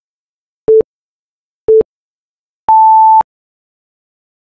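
Countdown timer beeps: two short, low beeps a second apart, then a longer, higher beep about a second later as the countdown reaches zero.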